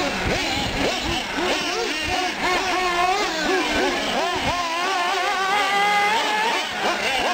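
Several small nitro engines of 1/8-scale R/C short course trucks revving up and down as the trucks race around a dirt track. The engines overlap, each pitch rising and falling quickly with the throttle.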